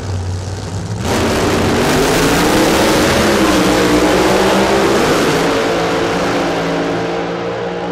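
Two Pro Mod drag cars' V8 engines idling at the start line, then launching together about a second in at full throttle. The engines stay loud with their pitch climbing steadily, and the sound eases off a little near the end as the cars pull away down the track.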